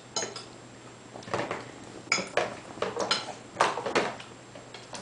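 A baby knocking a bottle and slapping his hands on the plastic tray of a baby walker: a string of about nine irregular sharp knocks and clacks.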